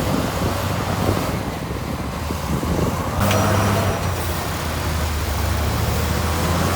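Heavy diesel engine of earthmoving machinery running steadily with a low rumble, growing louder a little after three seconds in as it is worked harder.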